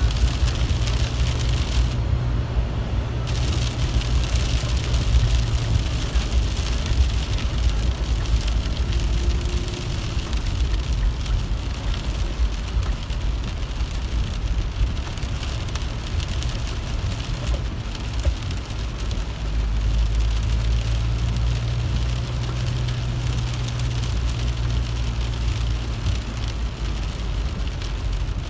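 Rain falling on a car's windshield and roof, heard from inside the cabin while driving, with many small drop ticks over the steady low rumble of the engine and tyres on wet road.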